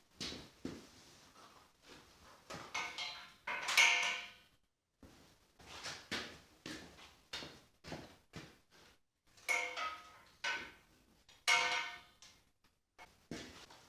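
Metal woodworking clamps clanking as they are hung on a rack: an uneven series of knocks and clatters, the loudest few with a short metallic ring, about four, ten and twelve seconds in.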